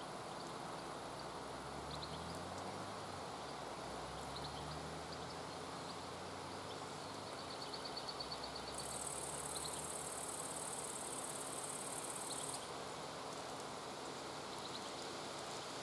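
Steady outdoor hiss of water and breeze, with a high-pitched insect trill that starts a little past halfway and lasts about four seconds. A few short faint high chirps come through now and then, and a faint low rumble rises and falls in the first third.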